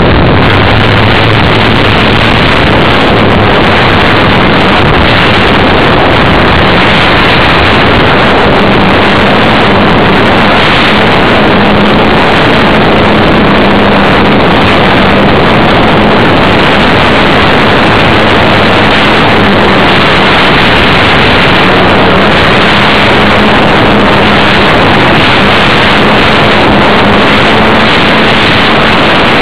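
Electric motor and propeller of an E-flite Funtana 300 foam RC plane, heard in flight from a camera on its fuselage: a loud, steady rush of propeller noise and air, with a faint motor hum that wavers slightly in pitch.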